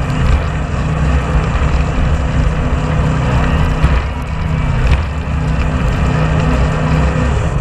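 Jet boat engine running steadily under way, a low continuous drone under a dense rush of water and air past the boat.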